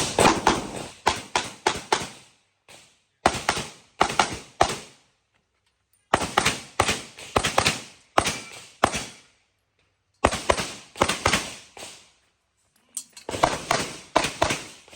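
Handgun shots fired in quick strings of several shots each, with short pauses between the strings, as in a competitor's IPSC stage run.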